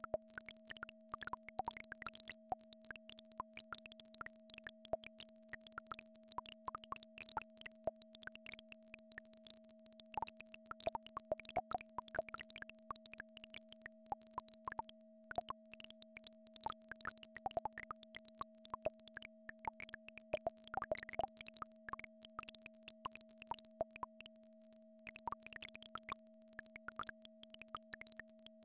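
Two steady synthesized tones, one low and one a little higher, held unchanging, with many faint plops and clicks scattered at irregular intervals over them, like dripping water.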